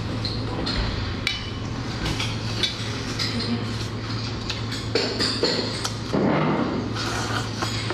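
Close-up eating sounds: chewing and mouth noises on boiled sheep's head meat, with many short clicks and clinks as fingers and bone knock against a stainless steel bowl while the meat is torn off the skull. A steady low hum runs underneath.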